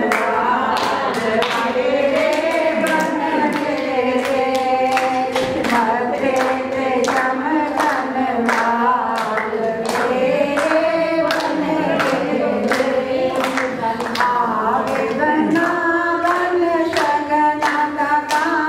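A group of people singing a song together, with rhythmic hand-clapping keeping time at about two claps a second.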